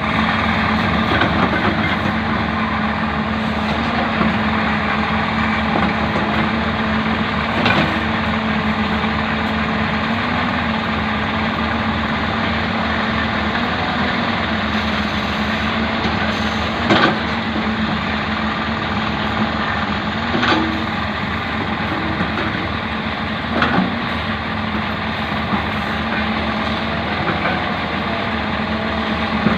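Hyundai backhoe's diesel engine running steadily under work, with several sharp metallic knocks at scattered moments.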